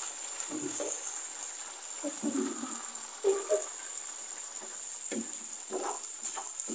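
Vegetable sofrito sizzling as it fries in a frying pan, stirred with a wooden spoon that scrapes and knocks against the pan now and then. The frying gives a steady high hiss.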